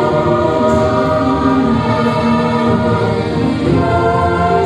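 Mixed men's and women's choir singing in harmony through handheld microphones, holding long sustained notes.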